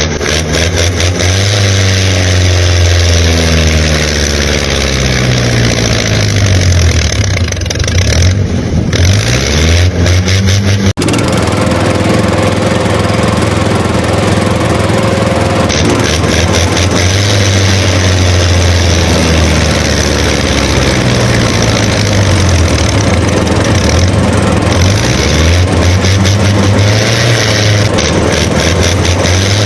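Engine running and revving, its pitch rising and falling again and again, with a sudden short break about 11 seconds in.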